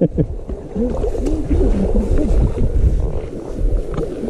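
A person's wordless voice making sliding, rising-and-falling sounds, over a constant low rumble.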